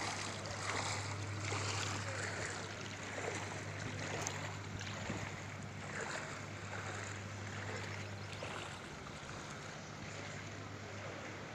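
Outdoor ambience around floodwater: a steady low hum under an even wash of noise.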